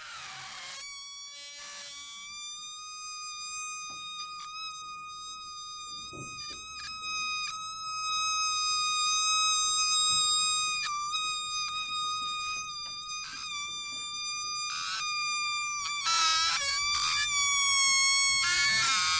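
Mosquito whine: a steady high-pitched buzz with many overtones, briefly wavering in pitch now and then. It grows louder about halfway through and again near the end, as when the insect flies close.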